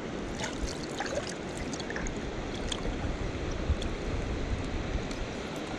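River water flowing steadily, an even wash of water noise, with a few scattered light ticks and taps.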